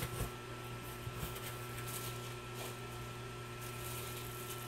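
Steady electrical mains hum and room tone, with a few faint handling knocks right at the start.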